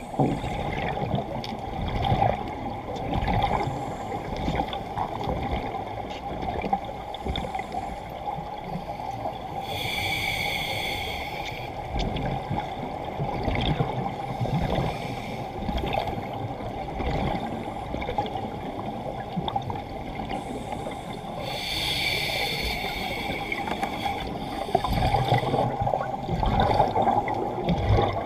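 Scuba regulator bubbles gurgling and rumbling underwater, muffled by the camera's waterproof housing, with two brief hisses about eleven seconds apart.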